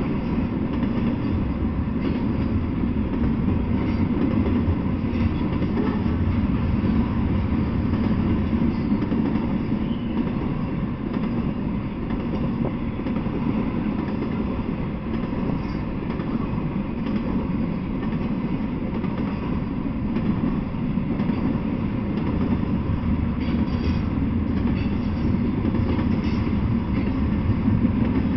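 Intermodal freight train of container well cars rolling past, a steady rumble of wheels on the rails.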